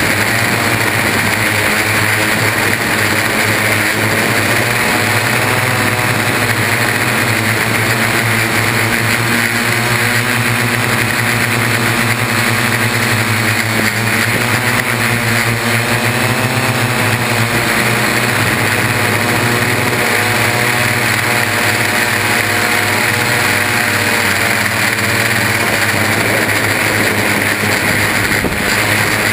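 Electric motors and propellers of a Y6 coaxial multirotor (six motors on three arms) buzzing loudly in flight, heard from a GoPro hard-mounted to the frame. The pitch wavers up and down as the throttle changes, most of all around the middle.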